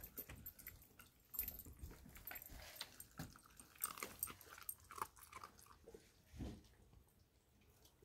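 A dog chewing and crunching a turkey neck: faint, irregular crunches and cracks of bone, thinning out near the end.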